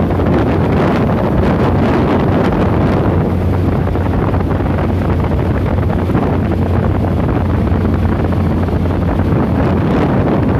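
Wind buffeting the microphone over the steady running of a small tunnel boat's engine as the boat moves along under way.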